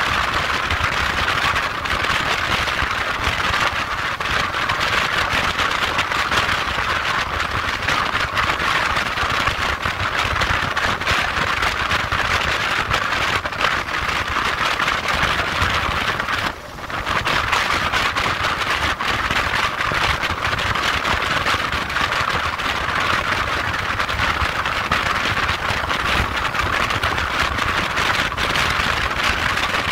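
Steady wind rush over the microphone with the low drone of a motorcycle engine underneath, riding at road speed. The noise drops away for about half a second more than halfway through.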